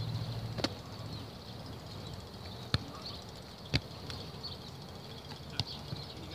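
Rugby balls being drop-kicked and caught on a grass field: about four sharp, short thuds of boot or hands on the ball, the two loudest a second apart near the middle.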